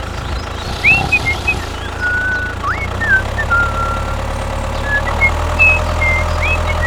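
A mini tractor's engine idling steadily with a low hum, growing a little stronger about two-thirds of the way in. Short high whistles, some rising, some falling, come and go over it.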